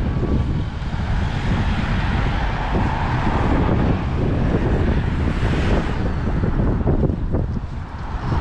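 City road traffic passing on a bridge, with wind buffeting the microphone; a car passes close by about five and a half seconds in, its tyre noise swelling and fading.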